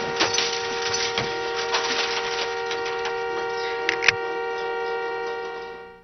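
A car horn sounding steadily in two tones, held on after a crash, with scattered sharp clicks and ticks over it. It fades out near the end.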